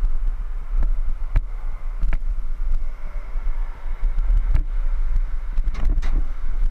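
Wind buffeting the microphone of a helmet-mounted camera on a rider of a Trikke three-wheeled carving vehicle, over the steady rumble of its small wheels rolling on pavement. Scattered sharp knocks and rattles, with a cluster of them about six seconds in as the wheels run onto a wooden bridge deck.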